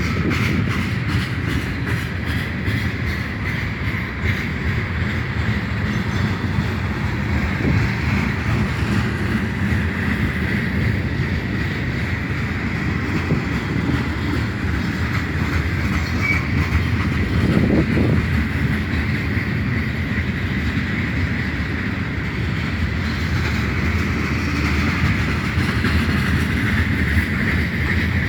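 Cars of a freight train rolling steadily past, wheels running on the rails, at a constant loud level.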